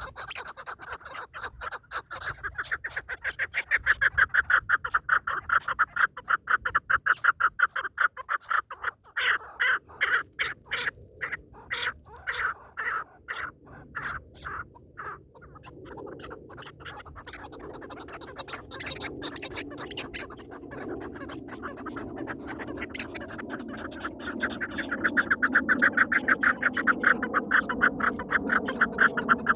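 Partridge calls: long runs of fast, rapidly repeated notes, slowing into separate, louder notes midway. A lower, drawn-out calling sound joins in the second half.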